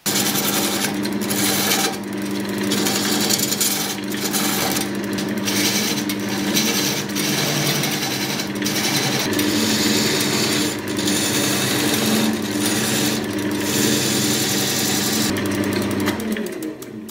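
A wood lathe turning a bark-covered silverberry log while a gouge cuts into it, a loud steady scraping over the lathe's hum. The cut breaks off briefly several times as the tool is lifted and re-engaged, and it fades out near the end.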